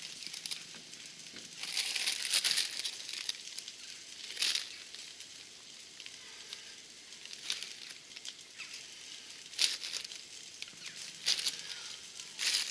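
Plastic bag of mixed salad leaves crinkling in short bursts as handfuls of leaves are pulled out, with the longest rustle about two seconds in.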